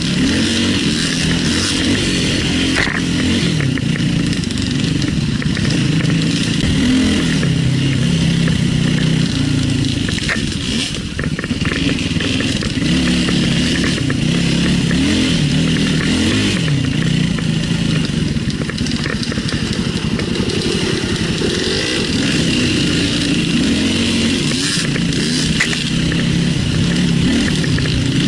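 Enduro motorcycle engine revving up and down repeatedly, the pitch rising and falling over and over as it works a steep off-road climb; loud throughout, with a brief drop about eleven seconds in.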